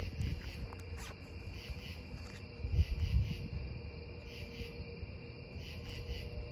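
Crickets chirping steadily in the night, over a low rumble, with a soft thump about three seconds in.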